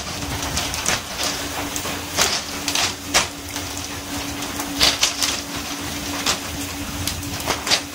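Skipjack tuna slapping and thudding onto a fishing boat's deck as they are swung in on poles, in irregular knocks about once or twice a second. Under them run the hiss of water spray and sea and a steady engine hum.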